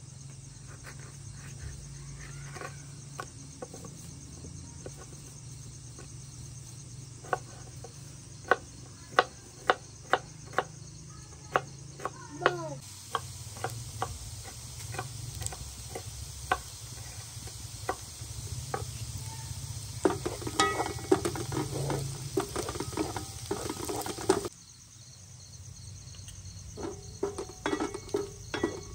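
Kitchen knife chopping a red bell pepper on a wooden cutting board: a run of sharp knocks, loudest in the middle. Underneath, onions are sizzling in oil in a frying pan. Near the end a wooden spatula scrapes and stirs the onions in the pan.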